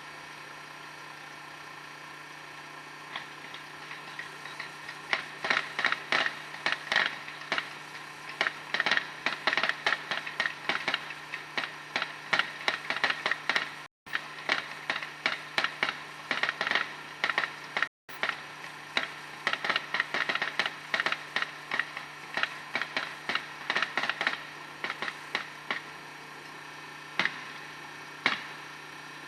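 Fireworks crackling: a rapid, irregular run of sharp pops that builds up, stays dense through the middle and thins out near the end, over a steady low hum. The sound cuts out briefly twice midway.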